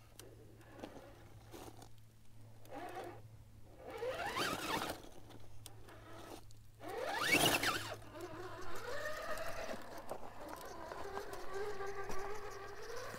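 RC4WD Marlin scale crawler's brushless motor and geared drivetrain whining as it crawls over sandstone. Its pitch sweeps up and back down twice, about four seconds in and again near the middle, then holds a steadier whine that rises near the end, with light scrabbling of the tyres on rock.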